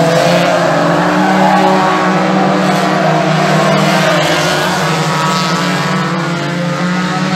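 Several banger racing cars' engines running hard as the cars lap the track, overlapping engine notes rising and falling in pitch as cars pass.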